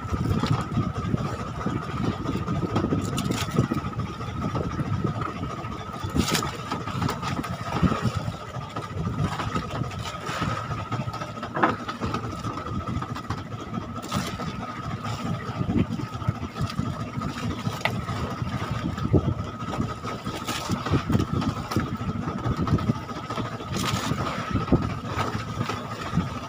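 A small engine running steadily on the fishing boat, with a thin steady whine over its rumble and a few sharp knocks scattered through.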